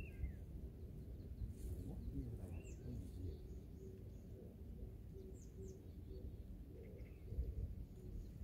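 Small birds chirping faintly in short, scattered calls over a low steady rumble.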